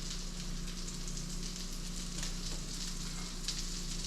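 Black drum fillet coated in blackened seasoning sizzling steadily in a hot pan, with a steady hiss and scattered small pops of frying oil.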